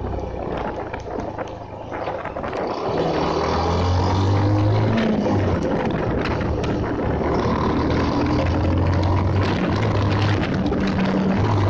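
Bajaj Pulsar motorcycle's single-cylinder engine running under way. The engine eases off just after the start, then picks up again from about two seconds in, its pitch rising as the bike accelerates, and it holds steady after that.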